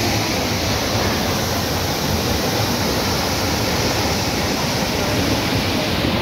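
Large mountain waterfall and the torrent at its foot, a loud, steady rush of falling water.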